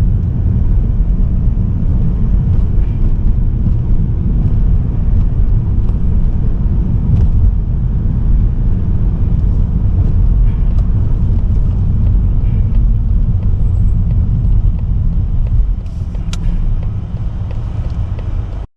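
Steady low rumble of a car driving, from road and engine noise of a Mazda3 with the 1.8 L Skyactiv-D diesel. It eases a little near the end, then cuts off abruptly.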